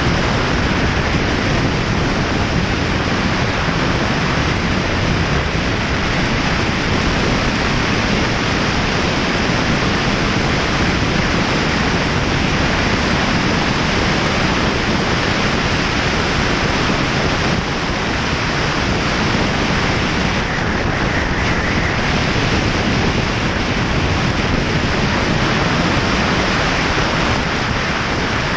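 Steady loud wind rush over a helmet-mounted camera's microphone while riding a motorcycle at road speed.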